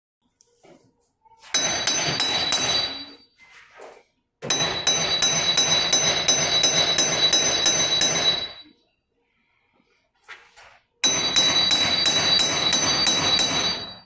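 Pneumatic air hammer chattering against a seized front wheel hub-bearing assembly to drive it out of the steering knuckle, the metal ringing with a high tone. It comes in three bursts: a short one early, a long one of about four seconds in the middle, and another of about three seconds near the end.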